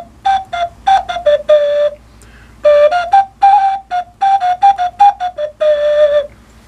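Small round painted ocarina, which the uploader calls a mermaid flute, playing a short melody of quick single notes. It plays two phrases, each ending on a longer held low note, with a brief pause about two seconds in.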